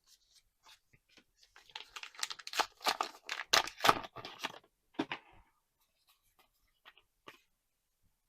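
Trading-card booster pack wrapper being torn open and crinkled, a burst of rustling tearing for a few seconds, followed by a few faint ticks of cards being handled.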